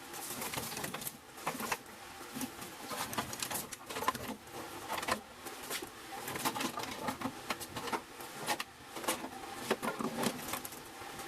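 Loose automotive wiring harness being pulled out of a car, with bundled wires, plastic connectors and loom rustling, scraping and clacking in an irregular stream.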